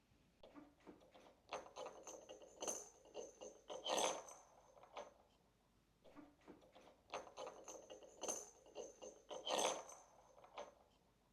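A kitten's toy jingling and rattling as it is batted and knocked about, in two bouts of about four seconds each with a short pause between them.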